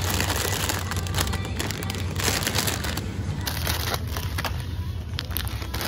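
Plastic packaging of dried noodle bags crinkling and rustling as a hand grabs and shifts them on a store shelf, with many small crackles throughout.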